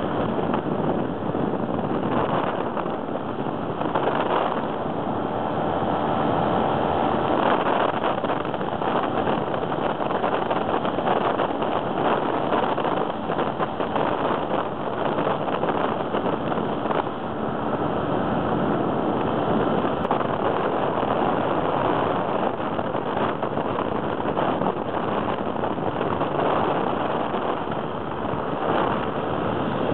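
Weight-shift microlight trike in flight: a steady, loud rush of engine noise and wind buffeting the microphone, unbroken throughout.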